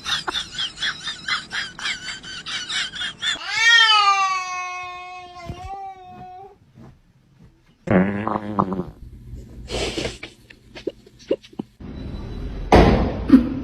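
Angry domestic cat yowling: a fast stuttering run of cries, then one long drawn-out yowl starting about three and a half seconds in. Later come short unrelated sounds: a low buzzy noise, a few clicks and a loud knock near the end.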